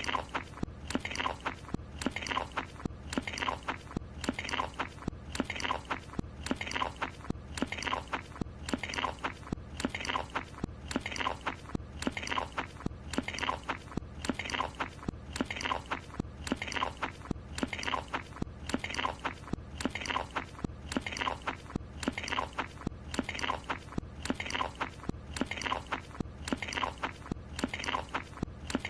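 A cartoon character biting and chewing a croissant. It is a short eating sound looped over and over, repeating about once a second.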